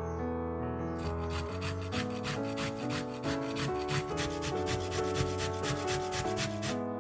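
Fresh coconut grated on a flat stainless-steel hand grater: quick, even rasping strokes, several a second, starting about a second in and stopping just before the end, over piano music.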